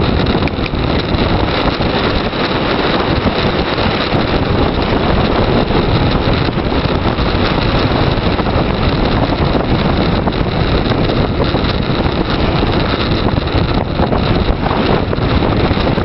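Loud, steady wind noise rushing over the microphone of a camera on a bicycle speeding downhill.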